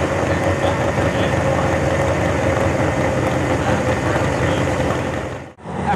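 Big-block V8 pulling truck's engine running steadily at idle, with a thin steady whine over it. The sound cuts off abruptly about five and a half seconds in.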